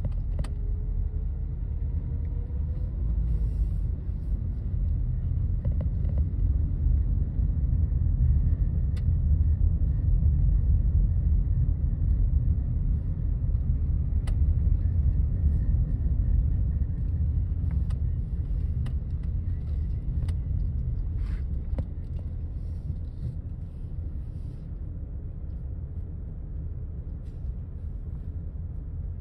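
A car driving slowly, its engine and tyres making a steady low rumble heard from inside the cabin, with a faint rising engine note in the first few seconds.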